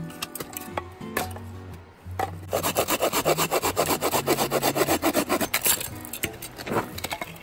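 Hand saw cutting through a piece of split firewood with fast back-and-forth strokes, starting about two and a half seconds in and easing off near the end.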